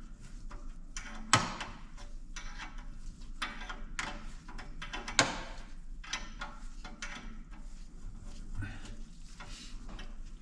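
Hand tools and metal parts being handled on a workshop bench: scattered light clicks and knocks, with two sharper clanks about a second in and again about five seconds in.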